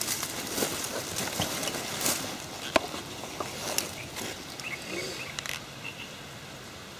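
Handling noise as a telescopic fishing rod with a spinning reel is drawn out of a fabric rod bag: cloth rustling and scattered clicks, with one sharp click about three seconds in. It settles down after about six seconds.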